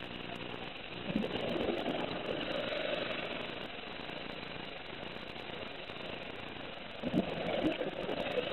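Scuba diver's regulator exhaling, two rushes of bubbles about five seconds apart, a second in and near the end, over a steady low underwater hum.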